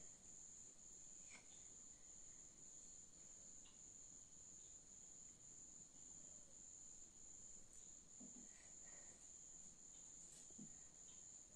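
Near silence: faint room tone with a steady high-pitched whine or trill throughout, and a few faint soft taps as cucumber slices are laid on bread.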